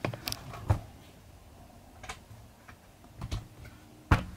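Scattered clicks and knocks from a camera being handled and raised into a new position, about half a dozen light handling bumps with the sharpest about four seconds in.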